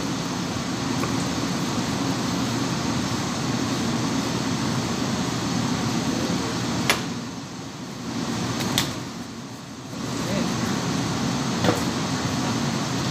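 Steady mechanical hum of kitchen equipment, with three sharp knocks of a knife on a plastic cutting board as a sushi roll is sliced. The hum dips twice briefly past the middle.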